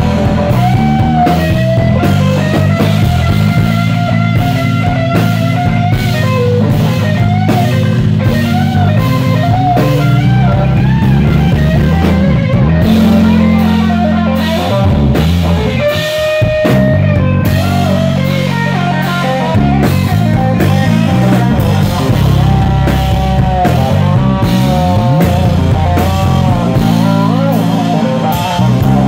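Live band playing loudly: a Telecaster-style electric guitar solo with bent, gliding notes over bass and drums.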